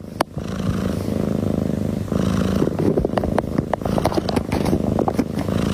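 Domestic cat purring close to the microphone, a steady rumble with a few light clicks and rustles over it.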